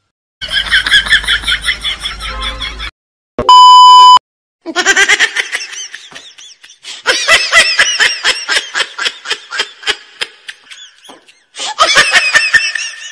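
A run of short sound-effect clips, mostly high-pitched laughter that pulses and cackles in quick bursts. About three and a half seconds in comes a loud steady beep at one pitch, under a second long, like a censor bleep.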